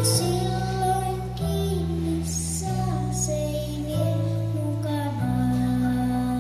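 A young girl singing into a handheld microphone over an amplified backing track, with the bass chords changing about every second and a half under her melody.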